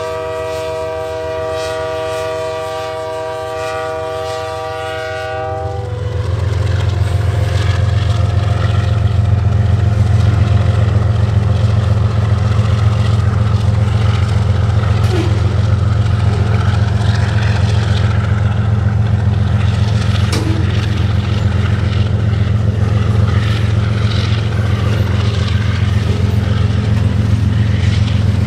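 Diesel locomotive air horn sounding one steady multi-note chord, cutting off about five seconds in. The GE diesel locomotives' engines then take over as a loud, deep, steady rumble as the train rolls out.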